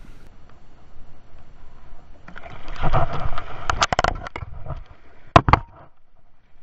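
Water splashing and sloshing against a boat hull, with a loud stretch of several sharp knocks about two seconds in and two hard knocks near the end.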